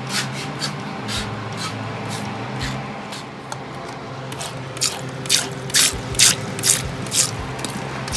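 Plastic trigger spray bottle squirting water, a run of about six quick squirts roughly two a second starting about halfway through, with a few fainter squirts before it.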